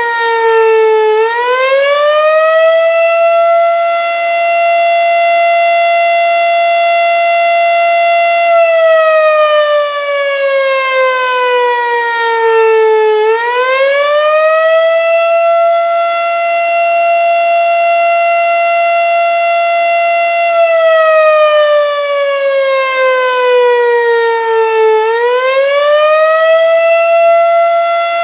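Federal Signal STH-10 single-tone rotating outdoor warning siren sounding the attack signal. Its pitch climbs quickly, holds high for about seven seconds, then slides slowly down and climbs again, three climbs in all.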